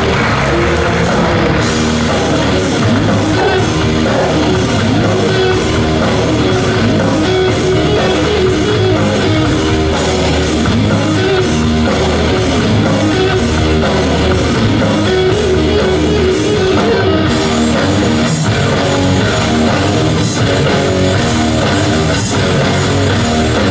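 Rock-style instrumental music with electric guitar and a drum kit, loud and steady.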